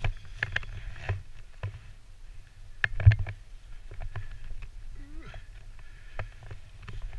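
Footsteps crunching through dry fallen leaves on a wooded slope, about two steps a second, each with a dull thud of the footfall. One step about three seconds in is heavier.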